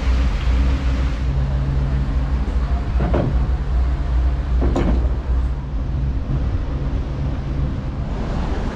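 Dutch barge's diesel engine running steadily at low revs, with two sharp knocks about three and five seconds in.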